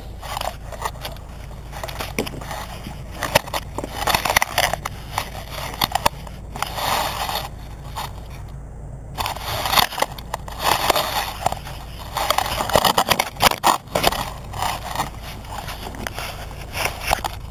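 Crunching of frozen snow with scraping, knocking and rubbing close to the microphone, coming in irregular bouts with short gaps, as a rollator is handled and tips over in the snow.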